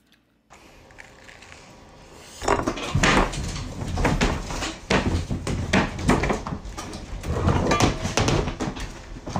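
A run of loud, irregular thumps and bangs, starting a couple of seconds in, as a man thrashes back against cupboard doors and kicks.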